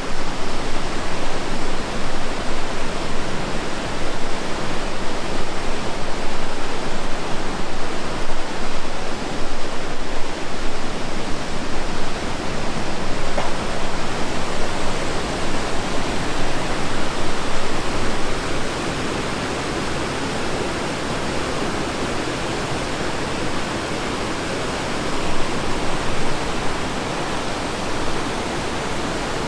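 Rushing water of a river and waterfalls: a steady, loud, even rush.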